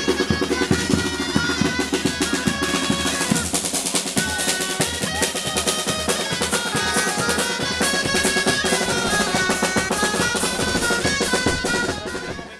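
Festive band music with a melody over snare drum rolls and bass drum, fading out near the end.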